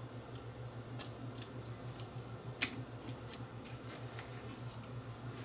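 Light clicks and ticks of a plastic cassette shell as its two halves are pressed back together by hand, with one sharper click about two and a half seconds in. A steady low hum runs underneath.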